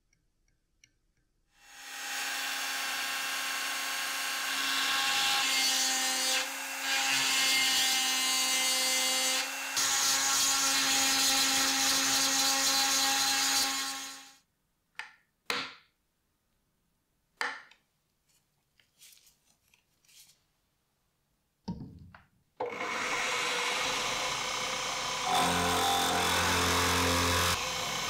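A rotary multi-tool runs steadily as its conical bit grinds a slot into a metal screw head in the cleaver's wooden handle, then stops. A few short bursts follow. Then a machine-driven cutter starts up and bores into the wooden handle, and a lower motor tone joins in a few seconds later.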